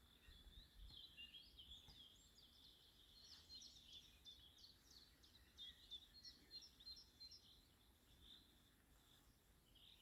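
Faint birdsong at dawn: small birds chirping and trilling in quick overlapping phrases, busiest through the first seven seconds or so and thinning out toward the end.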